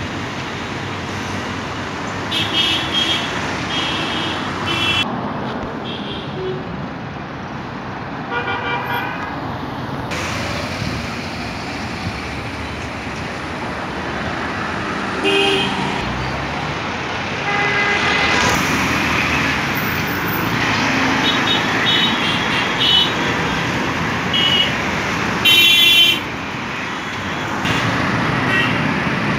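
Busy city road traffic: engines and tyres of passing cars and three-wheeled auto-rickshaws, with vehicle horns honking in short blasts several times, the loudest near the end.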